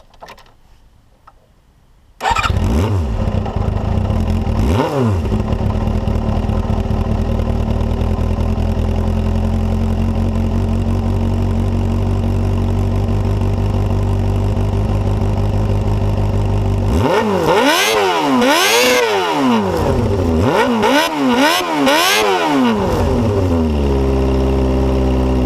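A freshly rebuilt Suzuki Bandit GSF250 inline-four motorcycle engine starts about two seconds in, is blipped once and settles into a steady idle. Later it is revved in a run of about five quick blips, each rising and falling, before dropping back to idle.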